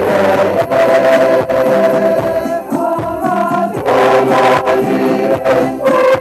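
Church choir singing a hymn during Holy Communion at Mass, several voices held together in sustained sung lines.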